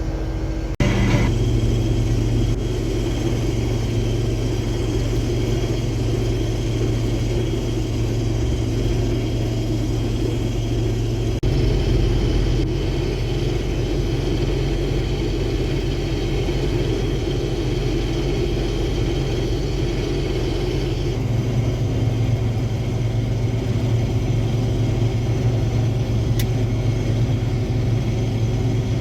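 Case IH Axial-Flow combine running steadily under load while harvesting soybeans: a continuous low machine drone. Its tone shifts abruptly about a second in, again about eleven seconds in, and again about twenty-one seconds in.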